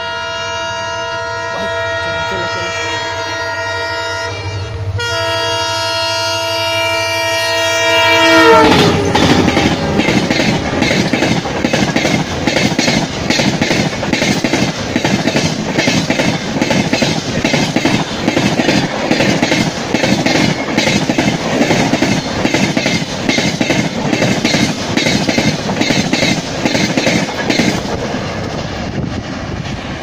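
WDP-4D diesel locomotive horn sounding in two long blasts with a short break between, dropping sharply in pitch as the locomotive passes about eight seconds in. Then the passenger coaches run past with a loud, rhythmic clickety-clack of wheels on the rails, easing off near the end.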